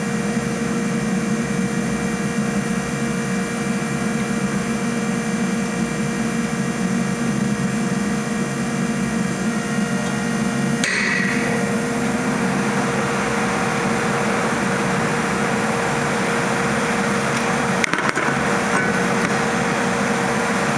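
Impact driver hammering steadily on the T40 Torx caliper-bracket bolts of a Ford Fusion front brake to break them loose, its sound changing about eleven seconds in, with a sharp click near the end.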